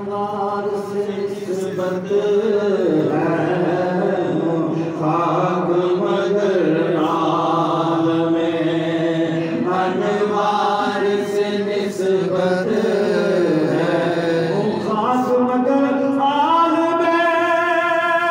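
A man chanting a naat solo into a microphone, without instruments, in long held notes that step up and down in pitch. About three seconds before the end the melody climbs to a higher, held phrase.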